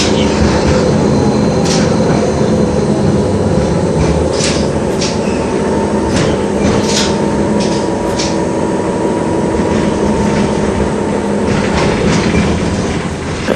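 LVS-86K tram running along the track, a steady rumble and hum of motor and wheels with scattered sharp clicks and rattles over the rail joints.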